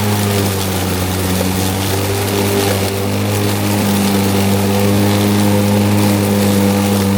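EGO Select Cut battery-powered lawn mower running through thick, tall grass with a high-lift blade: a steady hum over a noisy hiss.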